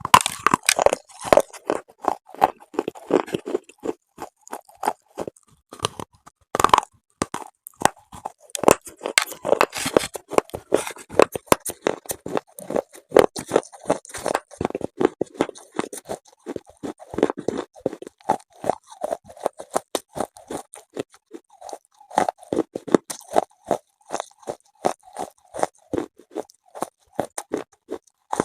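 Close-miked biting and chewing of hard, chalky mineral pieces such as slate pencil or chalk: a fast run of sharp, dry crunches, several a second.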